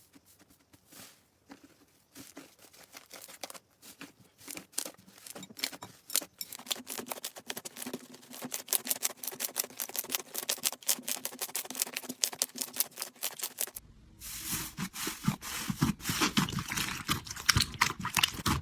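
Slime being pressed and worked by hand, making a dense run of crackling, popping clicks that grows busier over the first dozen seconds. About fourteen seconds in, it cuts to another slime clip with fuller, lower clicking.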